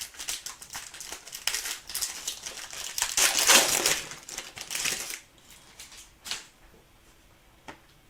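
A trading-card pack's foil wrapper crinkling as it is torn open, loudest between three and four seconds in, then a few light clicks as the cards are handled.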